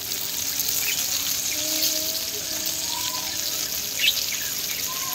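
Oil sizzling steadily under whole eggplants frying on a hot iron tawa, with a short sharp click about four seconds in.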